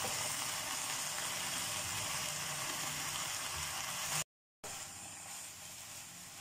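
Shredded cabbage, carrot and onion with chicken sizzling and bubbling in chicken stock in a frying pan, a steady hiss. The sound cuts out briefly a little past halfway and comes back quieter, the stock now nearly cooked off.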